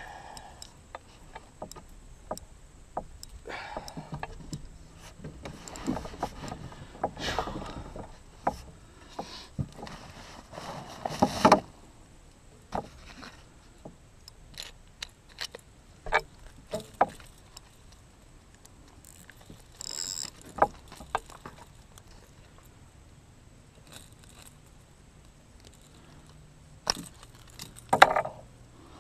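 Irregular handling noises in a canoe: scattered clicks, light metallic rattling and knocks against the hull, with a louder clatter partway through and a sharp knock near the end, as a just-landed fish and the tackle are handled and the fish unhooked.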